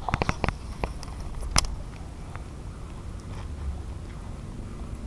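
A quick run of clicks and taps from a fishing rod and reel being handled during a cast, with one sharper click about a second and a half in. After that there is only a low, steady rumble.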